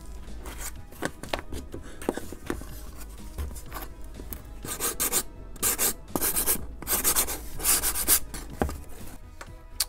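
Sanding block rubbed back and forth along the edge of a die-cut wooden model-plane fuselage part, cleaning up the cut edge. The strokes are light at first, then firmer and quicker from about halfway, at roughly two to three a second.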